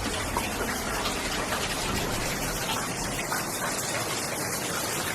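Heavy rain from Hurricane Irma pouring down hard, a steady dense hiss of falling water with scattered splashes of drops.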